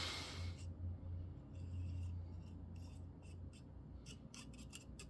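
Faint scraping and small scattered clicks of grease being worked onto the springs inside an out-the-front knife, over a steady low hum. A short hiss comes at the very start.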